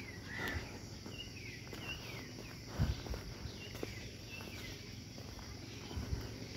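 Forest ambience: a bird repeating short downward-sliding chirps over a steady high drone of insects, with a couple of soft footstep thumps on the path.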